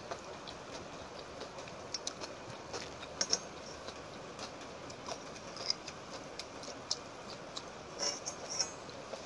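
Close-miked eating sounds from a person eating watery rice and egg fry by hand: irregular wet mouth clicks and smacks while chewing, over a steady hiss.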